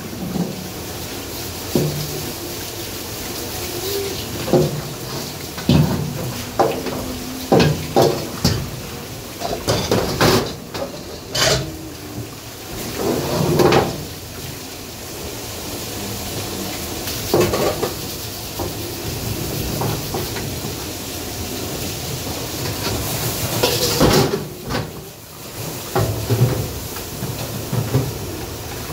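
Restaurant kitchen clatter: dishes, pots and cutlery knocking and clinking at irregular intervals over a steady hiss.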